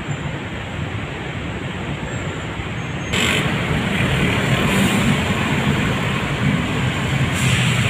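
Road traffic noise, a steady rush of passing vehicles that grows louder about three seconds in.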